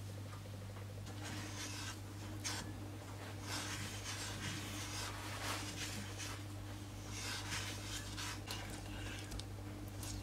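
Spatula stirring and scraping granulated sugar and golden syrup in a saucepan, in irregular gritty strokes over a steady low hum; the grating comes from sugar not yet dissolved.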